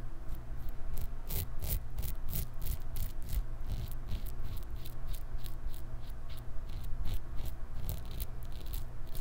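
Gillette Travel Tech double-edge safety razor with a Personna Lab Blue blade scraping through lathered stubble on the neck, in short quick strokes, about three a second.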